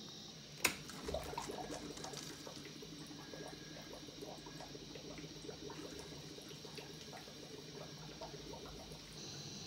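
Cooling water running through a glass distillation condenser and its hoses, with many small irregular trickling ticks and bubbles, after a single sharp click about half a second in. A steady hiss, the gas burner, starts just before the end.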